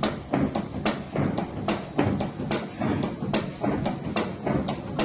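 Band saw cutting machine running with an irregular clattering of sharp knocks, about three or four a second, over a low steady rumble.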